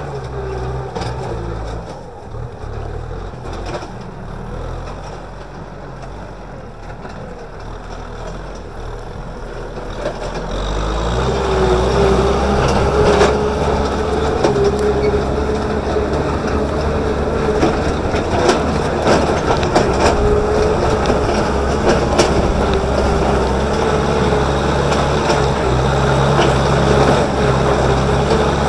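Kubota M6040SU tractor's four-cylinder diesel engine running steadily under load as it drags a disc harrow through dry soil, with a steady whine over the engine. It gets louder about ten seconds in, with scattered clicks from the discs and clods.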